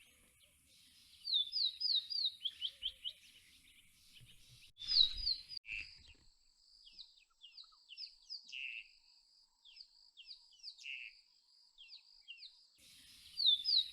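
Wild birds calling: quick runs of high, sharply slurred chirps, with scattered single notes between the runs.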